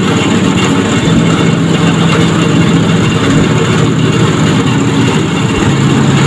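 Heavy boat engine running steadily at low revs, its pitch stepping down slightly about a second in and again near the end.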